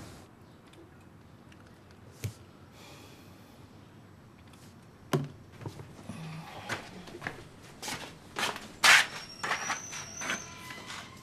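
A person getting up and moving about a small room. A single click, then a run of knocks, thumps and clatters of handling and steps, loudest about nine seconds in, with a thin high tone sounding near the end.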